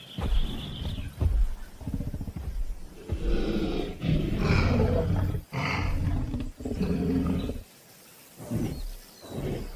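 Tyrannosaurus rex roar sound effect: a run of deep, rough roars and growls one after another, then two shorter, quieter growls near the end.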